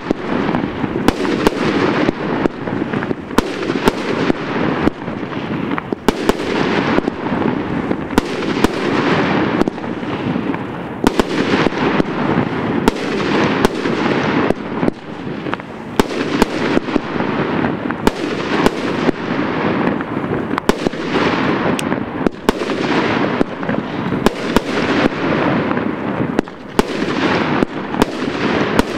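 Many fireworks going off at once: a steady din of crackling, with frequent sharp bangs throughout and no let-up.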